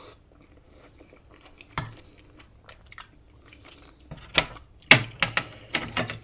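Chewing a mouthful of grilled tomato: mostly soft at first with a single click, then a quick run of sharp wet mouth clicks and smacks over the last two seconds.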